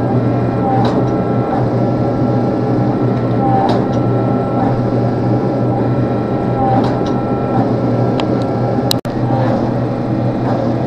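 Forge blower running steadily: a loud, even rush with a low hum and a few faint ticks while the billet heats to welding heat. The sound cuts out for an instant about nine seconds in.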